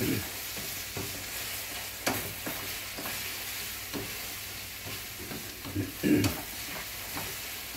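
Eggs sizzling in bacon grease in a skillet while a spatula stirs and scrapes them, with short scrapes and taps at irregular moments over a steady hiss.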